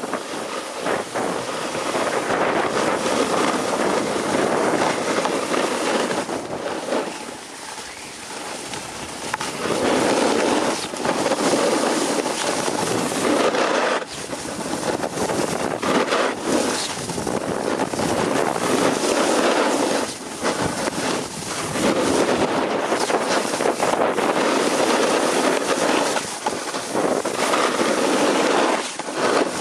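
Wind buffeting the camera microphone during a fast descent, mixed with the scrape of edges on hard-packed groomed snow, swelling and easing with the turns and dipping briefly a few times.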